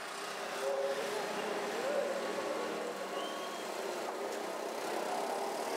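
Steady roadside city traffic noise.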